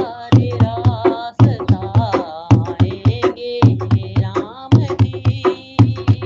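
Hindi devotional bhajan: a voice sings over a steady, rhythmic drum beat with hand percussion.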